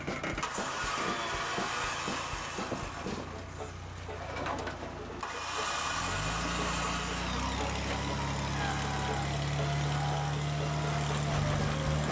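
Toyota Land Cruiser FZJ80's inline-six engine crawling the truck over boulders: a low steady run with scattered knocks for the first few seconds, then the engine pulls harder from about six seconds in and holds there, with a faint wavering whine above it.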